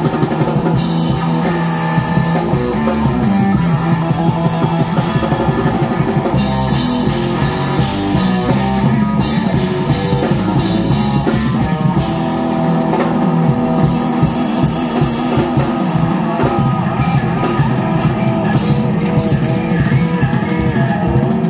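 Live band playing rock music on drum kit and guitar, with a steady beat.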